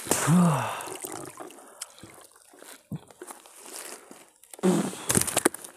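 Water splashing and dripping as a gill net holding a large fish is hauled out of a lake, with a short burst of sharper splashes about five seconds in.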